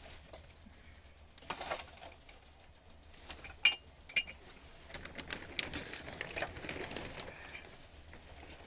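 Objects being handled with two sharp, ringing metallic clinks in quick succession near the middle, like dishes or metal pots knocking together, followed by a few seconds of small knocks and rustling.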